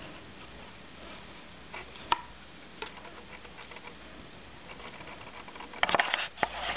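Light ticking and clicking of hand work with a balsa stripper and metal template on balsa sheet, with one sharp click about two seconds in and a burst of clicking and clatter near the end. A steady high whine underneath cuts off as the clatter starts.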